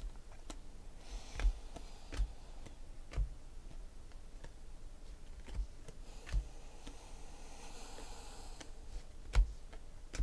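2016-17 Panini Prizm basketball cards flipped one at a time off a stack in the hand: irregular sharp clicks as each card is slid off, with faint sliding noise between some of them.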